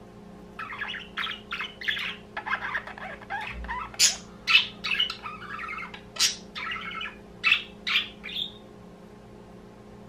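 Budgerigars chattering in a run of quick chirps, with several sharp, loud calls between about four and eight seconds in; the chatter stops a little after eight seconds.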